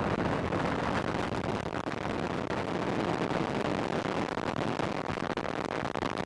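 Proton-M rocket's first-stage engines firing on the pad after ignition: a steady, dense rocket roar with fine crackle as thrust builds toward liftoff.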